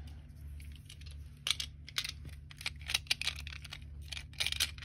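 Quick, irregular plastic clicks and snaps from a Tombow Mono adhesive runner being handled as its refill cartridge is swapped, starting about a second and a half in, over a low steady hum.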